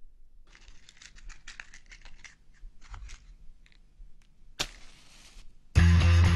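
Faint scattered clicks and rustling, with a short burst of noise a little past four and a half seconds in. Loud music with guitar then starts suddenly near the end.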